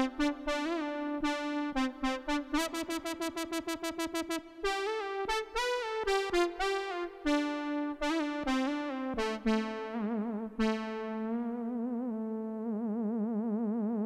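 Korg Poly 800 analog synthesizer playing a brass patch: a melodic line that includes a quick run of short repeated notes, then long held notes with a wavering vibrato.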